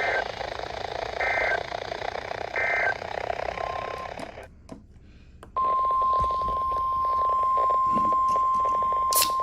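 Three short EAS/SAME digital data bursts, each a warble between two high tones, over weather-radio static: the end-of-message signal of a warning. After a brief silence comes a steady NOAA Weather Radio 1050 Hz alarm tone for about four seconds, the attention signal that opens the next warning.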